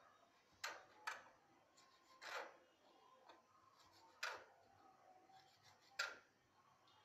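Small kitchen knife cutting goat intestine on a plastic cutting board: about five faint, irregularly spaced taps of the blade on the board.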